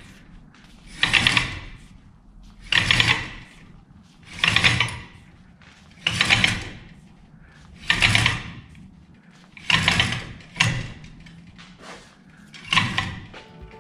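Rope running through the sheaves of a four-part block and tackle as a 66 lb speaker is hoisted hand over hand, one rasping, clicking stroke per pull, about one every one and a half to two seconds.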